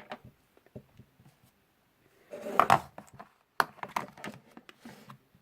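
Light clicks and knocks of small hard objects being handled, with a louder rattling cluster about two and a half seconds in.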